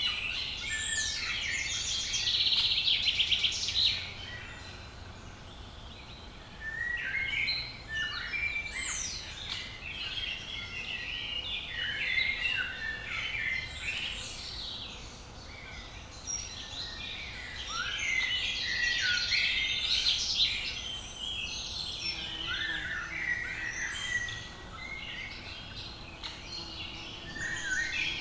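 Woodland birdsong: several songbirds singing over one another in short phrases and trills, with a fast trill about two to four seconds in.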